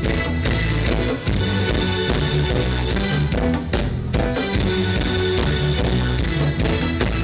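A live band playing an instrumental with drum kit, bass and guitar, the melody led by a cello.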